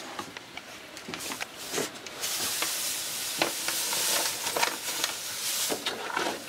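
Sugar poured from a paper bag into a pot of wort, a steady hiss of falling granules that starts suddenly about two seconds in and lasts about four seconds, after some paper rustling and handling clicks. Near the end a wooden paddle knocks as it starts stirring the pot.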